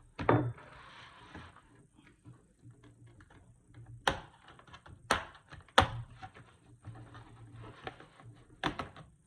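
Sharp plastic clicks and snaps with scraping between them, as the clips of a Dell Inspiron 5310 laptop's bottom cover are pried loose. A loud snap comes right at the start, then single snaps about four, five and six seconds in and again near the end.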